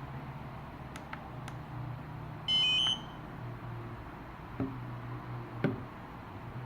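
A single short electronic beep from a DJI Spark remote controller, about half a second long and stepping through a few pitches, is the loudest sound. Soft clicks, likely from handling or button presses, come before and after it over a low steady hum.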